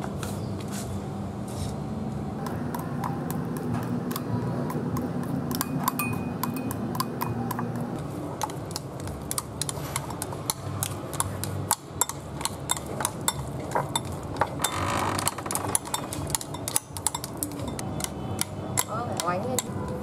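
Chopsticks and a metal spoon beating egg into a minced mixture in a ceramic bowl, clicking against the bowl in quick irregular strokes that grow denser in the second half, over a steady low hum.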